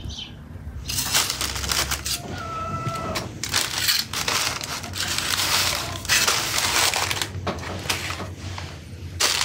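Parchment paper crinkling and rustling in repeated bursts as pastries are set down on a paper-lined, foil-wrapped baking rack.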